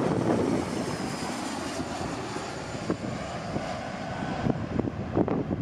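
Jet engines of a twin-engine Embraer regional jet on final approach with its gear down, passing overhead: a steady rushing noise with a faint high whine that eases off as the aircraft moves away. Wind crackles on the microphone near the end.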